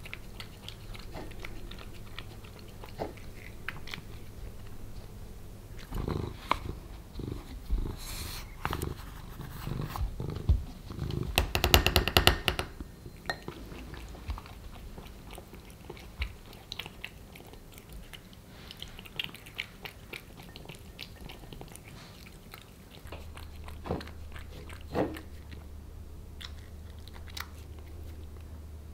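Ragdoll cat eating wet cat food from a glass bowl: wet chewing and licking with small clicks, growing into a louder run of rapid clicking about halfway through, and a couple of sharper knocks near the end.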